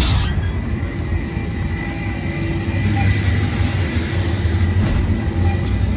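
Steady low hum of supermarket machinery, with a thin high whine that comes in about three seconds in and fades out near the end.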